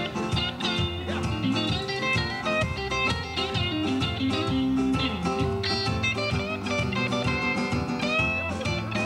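Live band playing an upbeat number led by guitar, with upright bass underneath; the guitar lead bends its notes.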